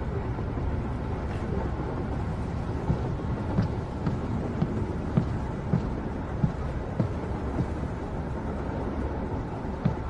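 Steady low rumble of a moving passenger train heard from inside the carriage, with a few light knocks scattered through the middle.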